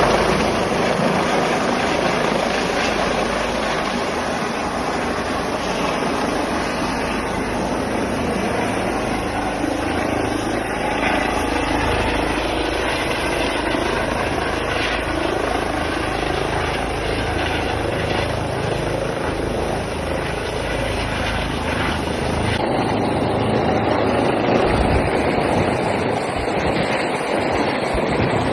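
Medevac helicopter landing, its rotor and turbine running loud and steady with a deep rumble underneath. About three-quarters of the way through, the highest hiss thins out while the rumble continues.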